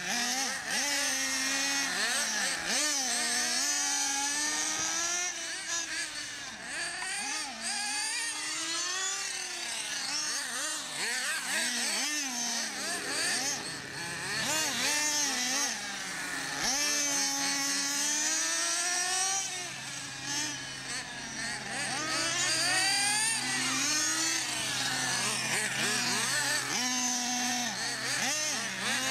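Nitro radio-controlled cars' small glow-fuel engines revving up and down as they drive, several whines rising and falling over one another.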